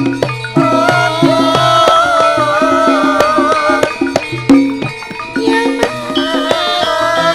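Live Javanese gamelan music accompanying tayub dancing: frequent hand-drum (kendang) strokes over struck bronze metallophones and gongs, with a wavering, sustained melody line held above them.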